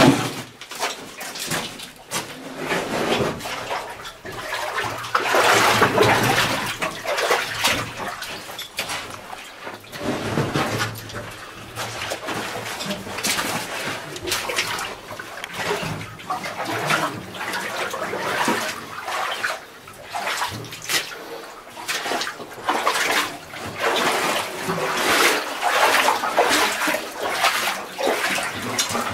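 A caver clambering through a tight rock passage: irregular scraping, rustling and knocking of clothing and gear against the rock, coming in uneven bursts.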